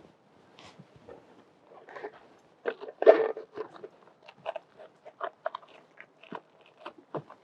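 Irregular clicks, knocks and rattling from handling an all-terrain wheelchair while settling into it, with a louder clatter about three seconds in.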